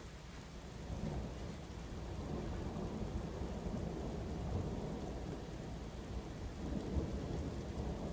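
Thunder rumbling at length over steady rain, swelling about a second in and again near the end.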